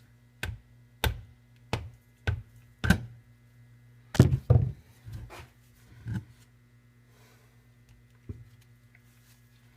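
Crankshaft being tapped out of a 70cc Chinese quad engine's split aluminium crankcase: a series of sharp knocks, about one every half second at first, then a few more spaced farther apart.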